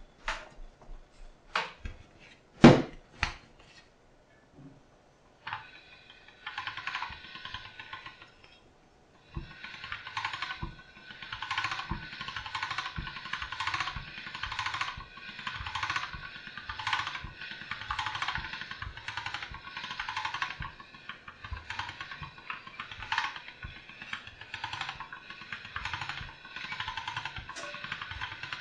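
An all-metal hand-cranked pasta machine rolling a sheet of egg-pasta dough: the rollers and crank gears whir in a rhythm that pulses roughly once or twice a second. It starts after about six seconds and pauses briefly near nine seconds. Before it come a few knocks and taps, one loud knock between two and three seconds in.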